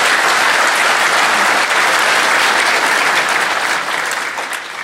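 Audience applauding at the end of a conference talk, steady and then fading away near the end.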